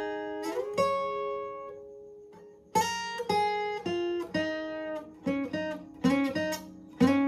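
Guitar tuned a half step down playing a riff of picked notes that ring and fade. Two notes sound near the start, then a quicker run of notes follows about three seconds in.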